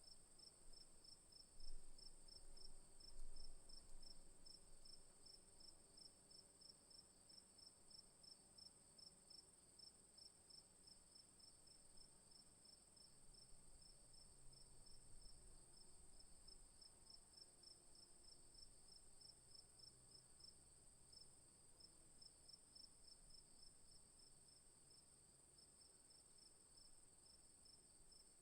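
Chorus of crickets: a steady high trill over a faster, pulsing chirp, running on evenly. Two brief low rumbles stand out about two and three seconds in.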